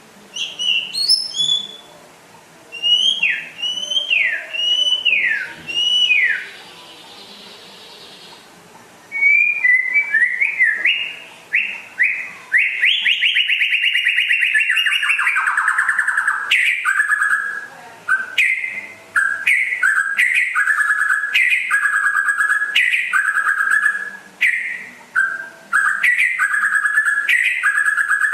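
White-rumped shama (murai batu) singing hard: a few loud, falling whistled notes in the first seconds, a short lull, then from about nine seconds a long, unbroken run of rapid repeated notes.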